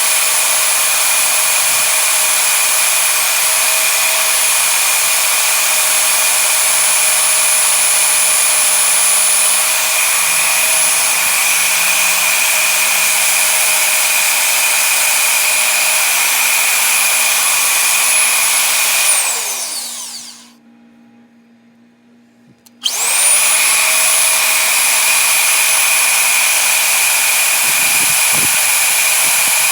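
Electric power tool motor running at a steady high-speed whine. About two-thirds of the way through it is switched off and spins down to a stop, then after a couple of seconds it is switched back on and quickly spins up to full speed again.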